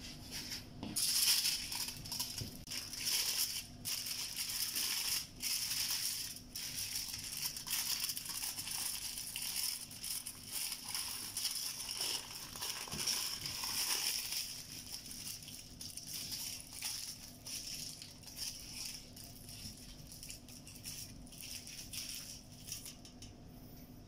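Aluminium foil crinkling and crackling as it is rolled tightly around a log of raw meat mixture and its ends twisted shut. The crinkling is busiest in the first half and thins out in the second half.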